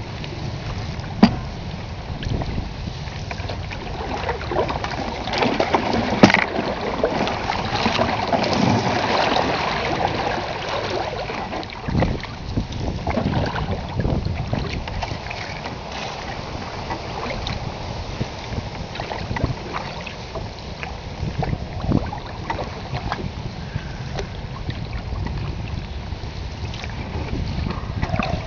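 Open canoe moving on a fast-flowing river: water washing along the hull and paddle strokes, with wind buffeting the microphone and a few sharp knocks, the loudest about a second in and about six seconds in.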